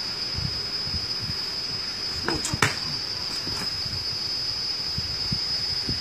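Steady high-pitched insect drone, with a quick rising whoosh and then a single sharp snap about two and a half seconds in.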